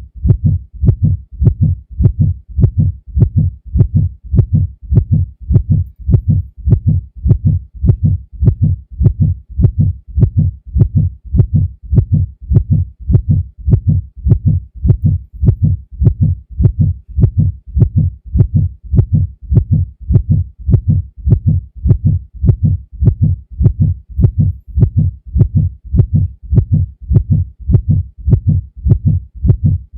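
Heartbeat sound effect: a steady lub-dub of low, dull thumps repeating at an even rate, unchanging in speed and loudness.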